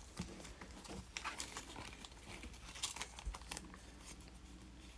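Faint crinkling and rustling of a clear plastic card sleeve and trading cards being handled, with a few soft ticks of card edges.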